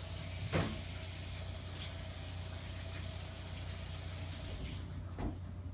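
Kitchen sink tap running while hands are washed under it: a steady rush of water with a faint steady tone, and a short knock about half a second in and another near the end.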